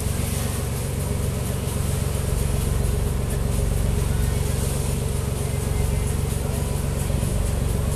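A motorboat's engine running steadily under way, a low even drone, with a constant hiss of water rushing past the hull.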